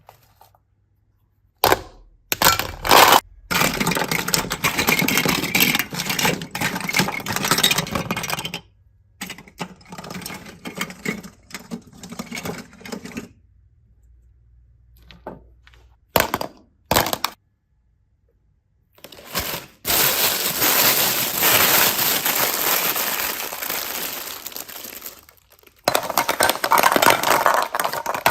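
Slime being squished and worked by hand, giving crackling, squelching handling noise in stretches of a few seconds. It stops and starts with short silent pauses, and the longest stretch comes about twenty seconds in.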